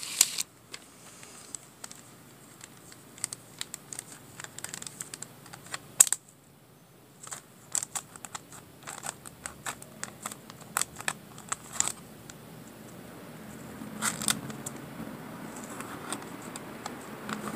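Foil trading cards being handled by hand: a scattering of small clicks and taps as the cards are slid, flicked and turned, with one sharp click about six seconds in.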